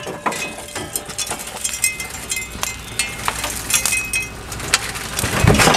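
Scattered metallic clinks and clatter of hand tools and hardware against the rusted frame and fuel-tank mounts under a pickup, with a few short ringing metal tones and a louder, noisier sound near the end.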